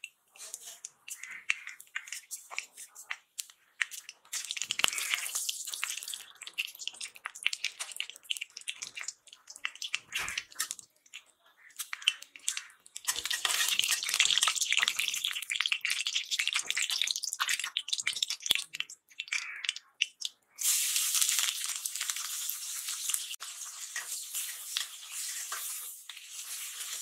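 Black cumin seeds and dried red chillies crackling and sizzling in hot mustard oil in a steel wok, with many sharp pops. About twenty seconds in, a sudden, louder, steadier sizzle starts as sliced onions hit the oil and are stirred with a metal spatula.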